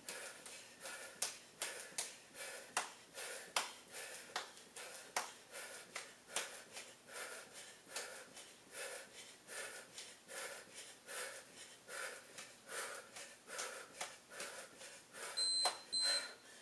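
Bare feet landing on carpet in a quick steady rhythm, about two steps a second, from running in place with high knees, with hard breathing between the steps. Two short electronic beeps sound near the end as the steps stop.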